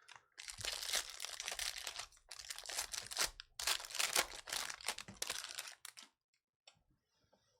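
Plastic-foil trading card pack wrappers being torn open and crinkled in the hands, in several crackling spells over about six seconds, then stopping.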